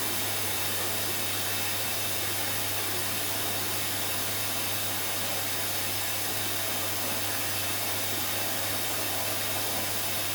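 Hoover washing machine filling with water at the start of its final rinse: a steady hiss of water rushing in through the open inlet valve over a low, even hum.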